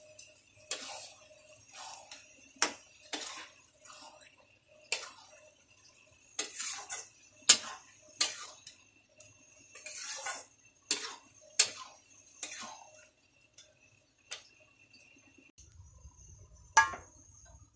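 Metal spatula stirring peas and paneer cubes in gravy in a metal kadai, scraping and clinking against the pan in a string of irregular strokes. The strokes thin out after about twelve seconds, with one more loud clink near the end.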